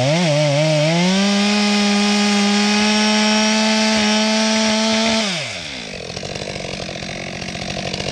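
Two-stroke chainsaw revving up and down, then held at steady full throttle as it mills across the top of a wooden stump and goes through easily, dropping back to idle about five seconds in.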